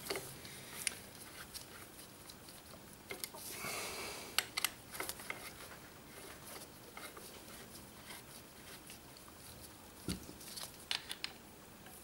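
Faint, scattered small metal clicks and scratching of a hex key and brake pad pins being worked into a motorcycle's rear brake caliper by gloved hands, with a brief rustle a few seconds in and a cluster of clicks near the end.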